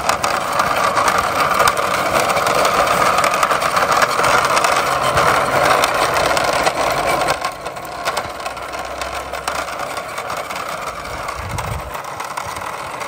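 Hard plastic wheels of a toy sports car rolling and scraping over rough concrete as it is pushed by hand, a steady grinding rumble that drops in level about seven seconds in.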